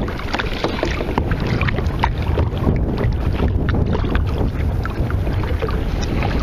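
Wind buffeting the microphone over a choppy sea, with water splashing and slapping against a kayak hull in many small irregular splashes.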